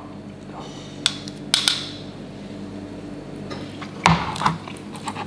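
Metal fork clinking against a tin can and a ceramic plate as baked beans are scraped out, with two sharp clicks about a second in. Just after four seconds the tin is set down on a plastic cutting board with a knock and a low thud. A steady low hum runs underneath.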